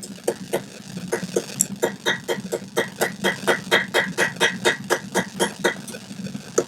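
Light, quick hammer taps on hot steel on the anvil, about four a second, rounding a forged taper from octagon to round. A steady low hum runs underneath.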